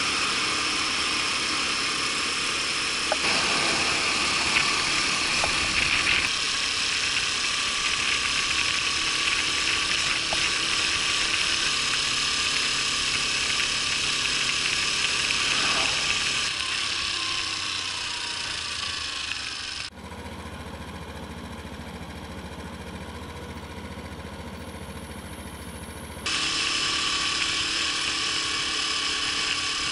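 Honda Super Cub 50's small single-cylinder four-stroke engine running while the scooter is ridden, over a steady rushing noise. Two-thirds of the way through, the sound cuts abruptly to a quieter, duller stretch, then jumps back to full level near the end.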